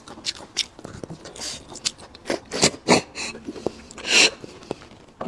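Eating noises close to the microphone: loud sucking slurps as marrow is drawn out of a braised bone, between wet mouth clicks and chewing. Several slurps, the loudest about four seconds in.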